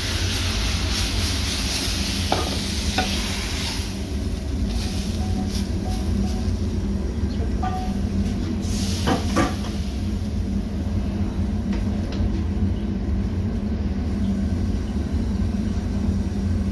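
Noodles sizzling in a frying pan as they are stir-fried, with a few sharp clinks of the utensil against the pan, over a steady low rumble. The sizzle is strongest for the first few seconds, then quieter.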